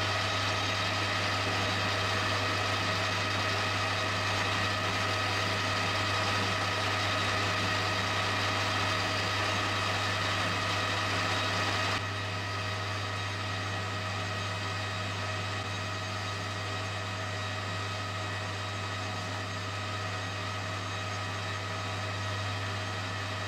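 Small metal lathe running steadily, a motor hum with a whine over it, as an aluminium spinner is hand-turned. About halfway through it drops slightly in level and loses its highest tones.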